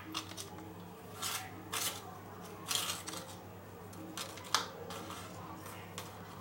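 About five light clicks and scrapes of a spoon against a container, over a faint steady low hum.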